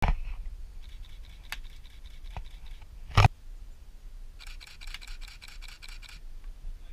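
Wind buffeting the microphone with a low rumble and scratchy rustle, broken by one sharp knock about three seconds in.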